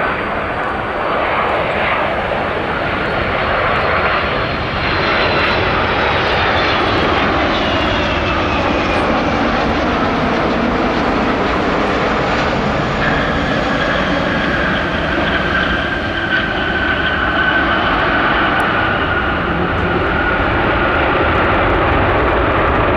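Airbus A330-300's Pratt & Whitney turbofans running loud and close as the airliner lands, with a heavy rumble throughout. A few seconds in, the engine whine falls in pitch as power comes off for touchdown. About halfway through, a new steady whine comes in over the rumble as the engines spool up again on the landing roll, as for reverse thrust.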